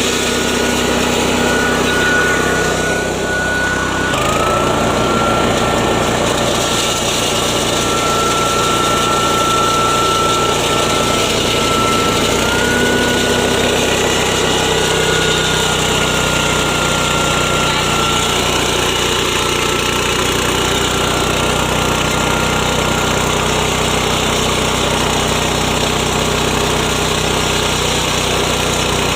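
Yasuka MGX 210 engine (7–7.5 HP) driving a mini 3-in-1 grain mill, running steadily under load while milling grain into flour through a fine sieve. A high whine over the engine drops slightly in pitch about four seconds in and rises again around twelve seconds.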